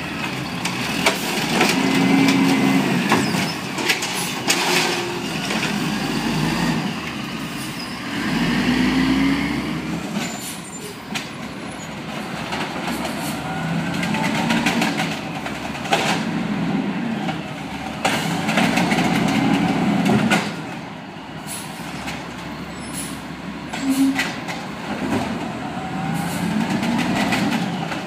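Automated side-loader garbage truck working its lift arm: the engine revs up and down every few seconds as the hydraulic arm raises and tips carts, with repeated clanks and bangs of the cart and arm at the hopper.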